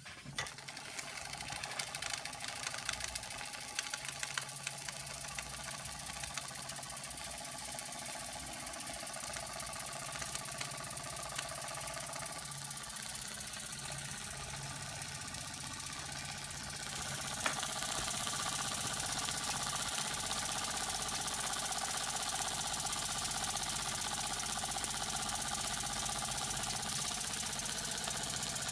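Antique Buckman twin-cylinder toy steam engine, fed by its fired vertical copper boiler, started by hand and running fast with a rapid mechanical clatter and hiss of steam. About seventeen seconds in it gets louder and then runs on steadily.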